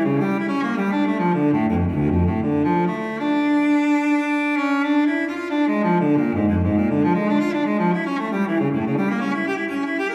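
Background music: a melody of stepped notes with a string-like sound, dipping twice to low bass notes.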